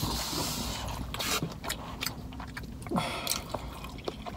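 Close-up chewing of fried chicken wings: scattered small clicks and crunches from the mouth, with no talking.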